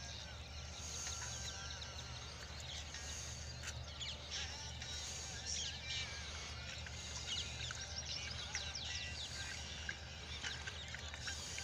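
Birds chirping with many short rising and falling calls, over a steady low hum.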